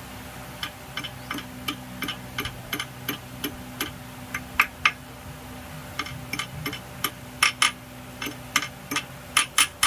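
Sharp metallic clicks and taps from hand-tool work on an engine's metal parts, irregular at about two or three a second and coming more thickly in the second half, over a faint steady low hum.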